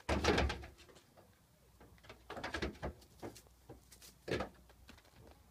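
A goat kid's hooves knocking on boards and on a hollow drum as it hops about, the loudest knock right at the start and a few more from about two seconds in. A few short soft calls are heard among them.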